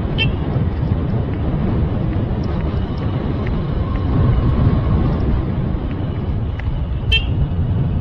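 Steady low rumble of wind and road noise from riding a bike, with two brief high chirps, one near the start and one about seven seconds in.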